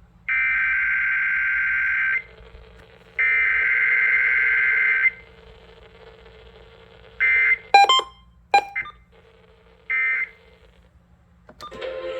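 Emergency Alert System SAME header tones: two harsh, buzzy digital data bursts of about two seconds each, a second apart. Later come a few short bursts of the same tone and some sharp clicks.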